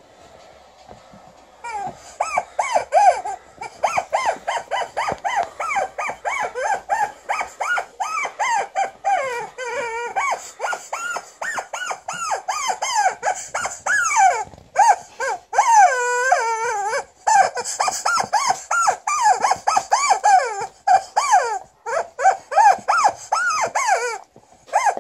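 Rubber chicken squeaky toy squawking over and over in short squeals, about three a second, as an Alaskan Malamute chews on it. It starts a couple of seconds in, with one longer wavering squawk about two-thirds of the way through.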